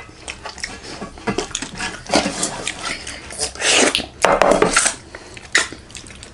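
Close-up eating sounds: daal bhaat being mixed on a plate and chewed, with scattered light clicks of dishes and several short wet bursts.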